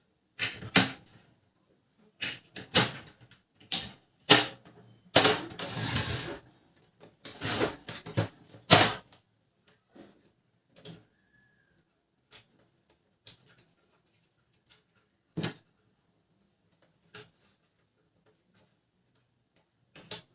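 Plastic parts and covers of a Canon LBP 2900 laser printer being handled and fitted back together: a run of clicks, knocks and short scrapes for about the first nine seconds, then occasional single clicks.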